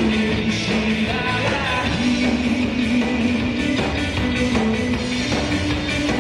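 Live band playing rock music, with a singer and an electric bass guitar.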